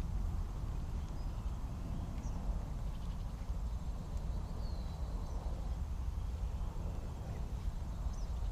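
Outdoor ambience: a steady low rumble with a few faint, short bird chirps scattered through.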